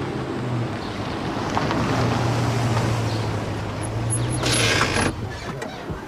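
Jeep Grand Cherokee driving over a dirt lot and pulling up, with a steady engine hum and tyre noise. About four and a half seconds in there is a brief hiss as it brakes, and then the engine noise drops away.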